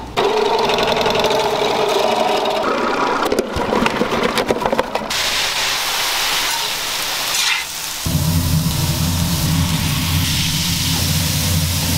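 Commercial kitchen cooking sounds in quick cuts. First a pitched machine whir as tomatoes go through a slicing machine, with a run of clicks. Then about five seconds in, a steady sizzle of onions frying on a flat-top griddle, joined about eight seconds in by a low steady hum as beef patties are smashed on the griddle.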